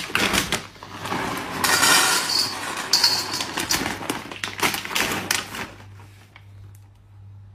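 Dry dog kibble poured into a stainless steel bowl, the pellets clattering and rattling against the metal for about five seconds before it dies down.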